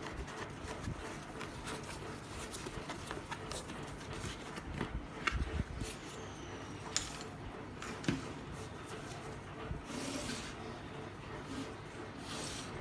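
Handling noise: scattered light clicks, taps and rubbing of objects being moved about, over a steady background hiss.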